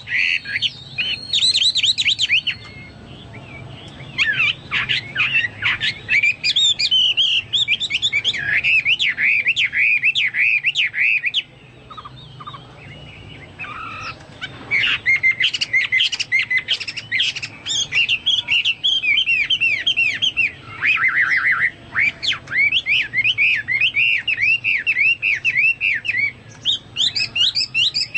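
Chinese hwamei (hoa mi) singing hard: loud runs of rapid, repeated whistled notes, likened to a cucak Papua or cucak mas. The song breaks off twice, briefly.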